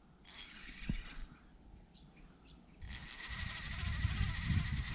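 Fishing reel's drag giving line to a hooked fish: a brief burst near the start, then a steady, rapid clicking buzz from about three seconds in. Low bumping and rumble of handling sit underneath.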